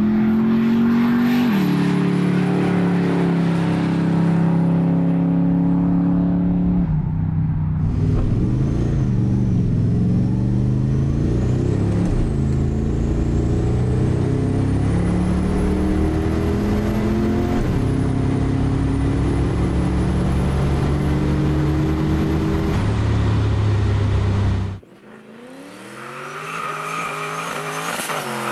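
V8 cars accelerating hard at full throttle down a drag strip, the engine note climbing and then dropping at each upshift. First a car is heard from trackside, then another car from inside its cabin through three gear changes. Near the end, after a sudden drop in level, a third car launches with a rising engine note.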